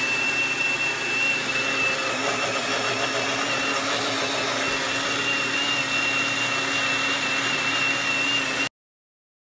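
Mini blender's motor running steadily at full speed, blending pancake batter, with a steady high whine over the motor noise. It cuts off suddenly near the end.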